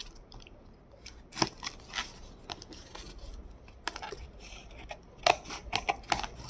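Scissors snipping and slicing through packing tape along the seam of a cardboard box: irregular sharp snips and short rasps of tape, with a quick run of snips near the end.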